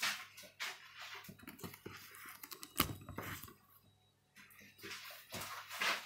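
Close handling noise from the camera being touched and adjusted: rustling and scraping, with one sharp knock about three seconds in.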